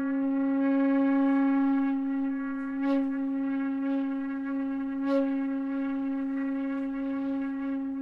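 Soundtrack music: a single long held note on a wind instrument, rich in overtones, swelling briefly about three and five seconds in.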